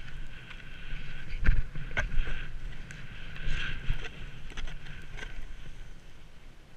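Snowboard sliding and scraping over snow, with wind rumbling on the microphone. A few sharp knocks cut through, the loudest about a second and a half and two seconds in.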